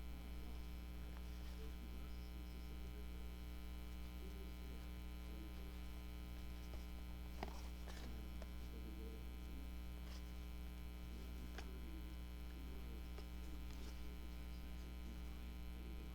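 Steady electrical mains hum with its even overtones, faint, with a few soft clicks of paper and thread being handled about halfway through.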